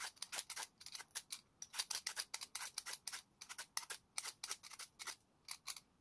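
Vegetable peeler scraping skin off a sweet potato in quick, uneven strokes, several a second.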